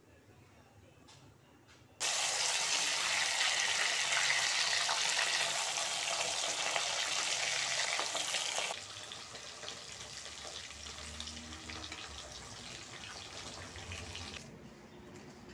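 Vegetable slices frying in hot oil in an iron kadai: a loud, even sizzle starts suddenly about two seconds in, drops to a quieter sizzle after about nine seconds and fades further near the end.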